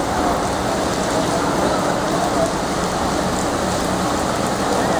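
Steady typhoon rain falling onto a flooded street and its standing floodwater: an even, unbroken hiss of rain.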